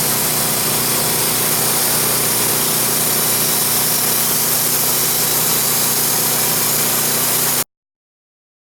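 Wood-Mizer LT15 sawmill running steadily under load, its engine and band blade sawing through an ash log. The sound cuts off abruptly near the end.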